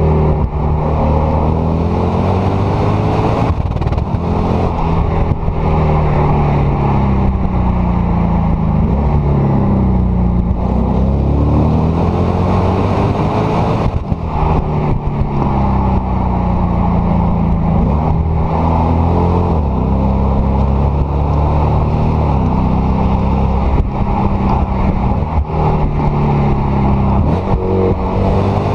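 Lexus IS-F's naturally aspirated 5.0-litre V8 (2UR-GSE) exhaust, heard right at the stacked tailpipes while the car drives. Its note rises and falls repeatedly as the car accelerates and eases off.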